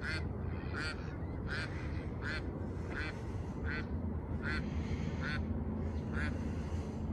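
A duck quacking in a steady series, about nine quacks at a little over one a second, ending about six seconds in, over a steady low rumble.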